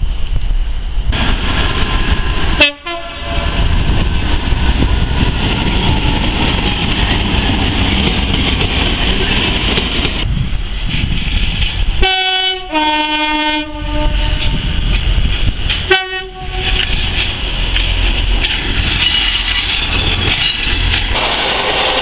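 Diesel trains running through stations, a steady rumble with wheels on the track, joined abruptly from several separate recordings. Two-tone train horns sound over it: a short blast about three seconds in, a longer high-then-low two-note horn around the middle, and another short blast a few seconds later.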